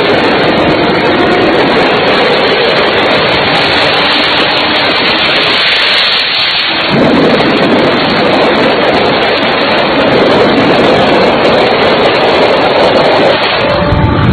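Cars racing flat out on a road, heard as a loud, distorted roar of engine and rushing air on a phone microphone. The roar dips briefly and comes back heavier about six to seven seconds in.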